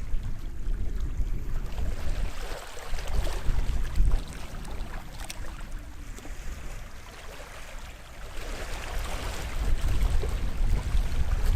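Small sea waves washing onto the shore, one swell of surf sound about three seconds in and another building from about eight seconds, with wind buffeting the microphone as a low rumble throughout.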